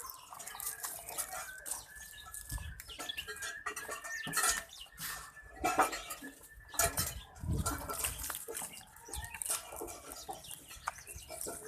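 Goats eating a jaggery-based feed mix from a container, with irregular clinks and knocks as they jostle at it. Clucking is heard alongside.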